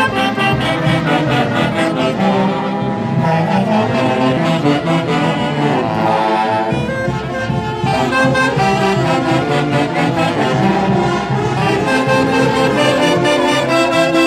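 Festive music from a band of wind instruments, brass and saxophones, playing a melody over a stepping bass line with a steady beat.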